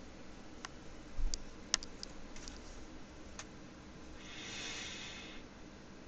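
A few scattered single clicks of a computer keyboard and mouse, with a soft hiss lasting about a second about four seconds in.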